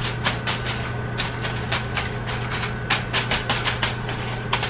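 Aluminum foil crinkling and crackling as it is pressed and crimped down around a skillet by hand, a rapid irregular run of sharp crackles, over a steady low hum.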